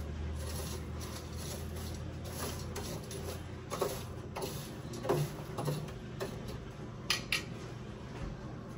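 Scattered light clinks and taps of a metal sieve and funnel against a glass mason jar, a handful in all, two in quick succession near the end.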